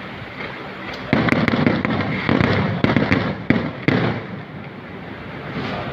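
Fireworks going off: a run of sharp bangs with crackling from about one second in to about four seconds in, then fading to a quieter background.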